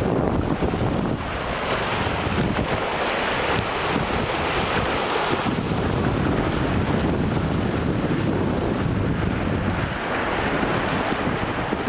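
Wind buffeting the microphone with a fluctuating low rumble, over small lake waves washing and breaking on a stony shore.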